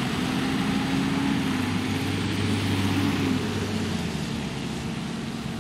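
Diesel engine of a fire brigade turntable ladder truck running as it drives past, with a steady hiss of tyres on the wet road. The engine note drops slightly about three seconds in, and the sound fades toward the end.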